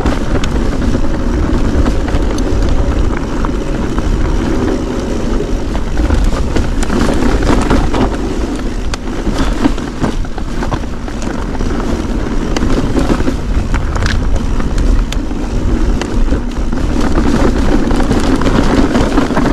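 Mountain bike riding over a stony singletrack: a steady rumble of tyres and wind on the microphone, with frequent sharp rattles and knocks as the bike rolls over rocks.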